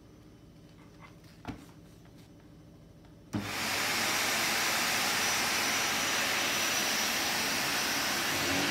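Vax Commercial VCU-03C upright vacuum cleaner switched on about a third of the way in: the motor comes up to speed within half a second and then runs steadily, a loud even noise with a faint high whine. A small knock comes before it, about halfway to the start.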